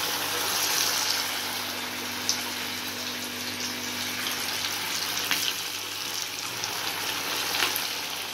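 Batter-coated chicken pieces deep-frying in hot oil just after going in: a steady sizzle, strongest at first and easing off a little, with a few small pops.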